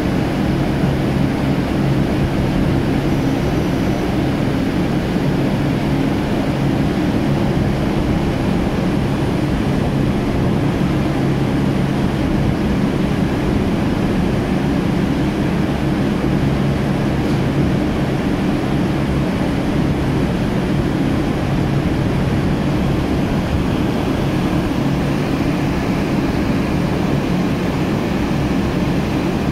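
Heavy offshore machinery running steadily: a loud, even low drone with several steady hum tones that does not change.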